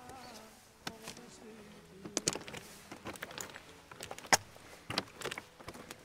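Footsteps on loose rock scree: boots stepping and stones clacking against each other in irregular knocks, the loudest about four seconds in.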